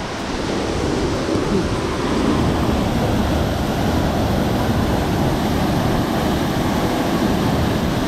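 Steady rush of moving water, a dense even noise with no distinct splashes, mixed with wind on the microphone.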